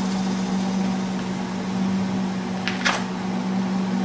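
A steady mechanical hum with one strong low pitch, and a brief sharp click about three seconds in.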